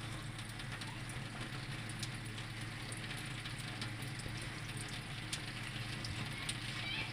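Grated-carrot halwa frying in ghee in a pan: a steady, faint sizzle with many small crackles, over a steady low hum.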